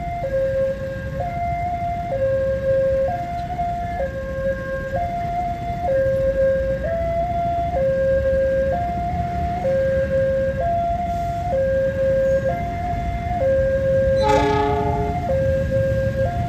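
Railway level-crossing warning alarm sounding two alternating electronic tones, high then low, each held about a second. Under it is the low rumble of an approaching diesel-hauled passenger train, whose locomotive gives a short horn blast about fourteen seconds in.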